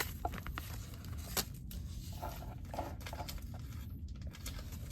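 Trading cards handled and flipped through by hand: a few soft clicks and light shuffling of card against card, over a low room hum.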